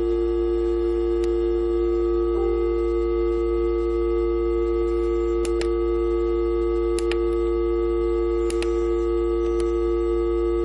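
Moog Mother-32 analog synthesizer sounding a steady drone of two held pitches through an amplifier, with a low hum beneath it. A few faint clicks come through it.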